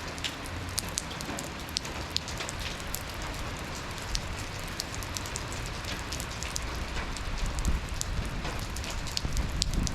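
Steady rain falling, with many separate drops ticking sharply close by over the even hiss. A low rumble builds near the end.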